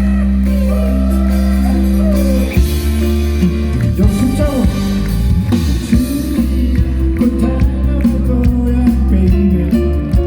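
Band music, opening on a steady held chord. The full band with drums comes in about two and a half seconds in, with a singing voice over it.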